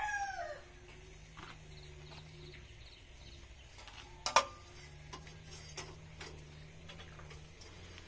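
The tail of a rooster's crow, a pitched call falling away and fading out about half a second in. Then low background with a few light clicks and one sharp click about four seconds in.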